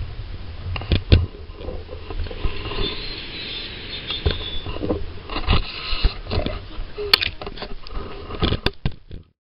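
Inside a car's cabin in slow traffic: low road and engine rumble with scattered clicks and knocks. The sound cuts off suddenly near the end.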